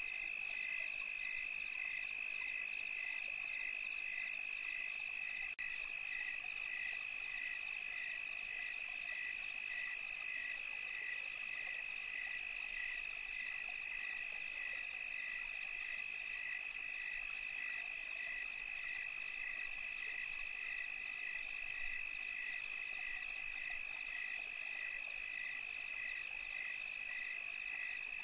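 Night chorus of calling insects and frogs: a steady high trill, with a second call pulsing evenly about twice a second.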